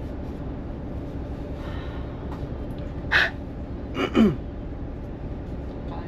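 Two short, loud vocal outbursts over the steady low rumble of an idling bus. The first is a sharp, gasp-like burst about three seconds in. About a second later comes a cry that falls steeply in pitch.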